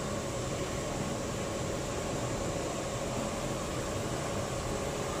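Steady machinery hum: an even noise with a faint steady whine running under it, with no stitching strokes or clicks.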